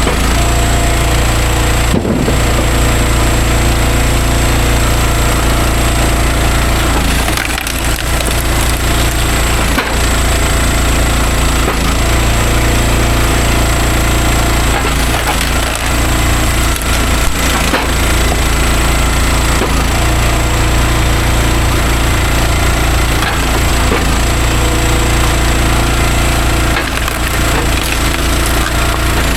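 Stihl MS400 two-stroke chainsaw running at high speed, cutting through logs, with a few brief dips in its note.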